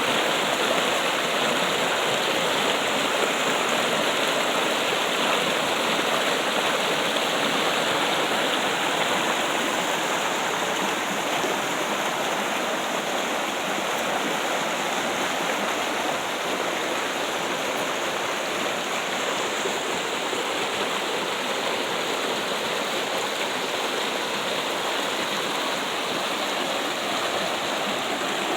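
Water trickling and splashing steadily, a continuous even rush like a small stream or fountain.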